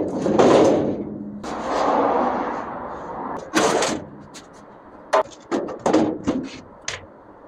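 Knocks and clanks of work on the truck. A noisy stretch in the first three seconds is followed by a sharp burst of noise, then a quick run of short knocks.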